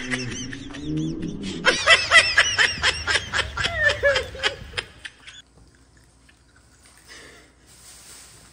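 People laughing hard in quick, high-pitched bursts, dying away about five seconds in.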